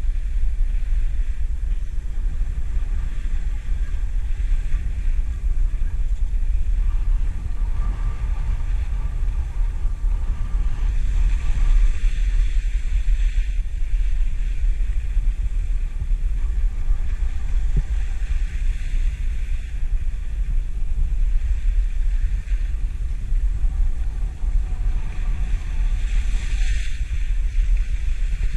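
Wind buffeting a small action camera's microphone during a downhill ski run, a steady deep rumble, with the hiss of skis gliding over groomed snow that swells and eases a couple of times.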